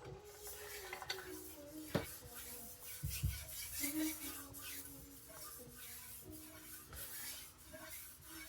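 Faint clinks, taps and light scrapes of a carbon-steel Chinese cleaver and other kitchen things being handled, with one sharper knock about two seconds in.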